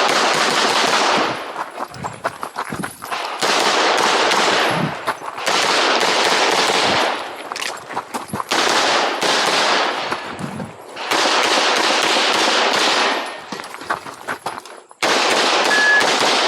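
Glock 17 Gen5 9mm pistol fired in rapid strings of several shots during a practical shooting stage: about six quick bursts of shots, each lasting a second or two, separated by short pauses for moving between targets and reloading.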